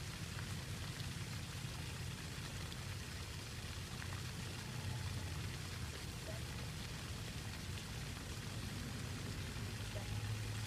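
Steady hiss of a lawn sprinkler's water spray over a low, even rumble.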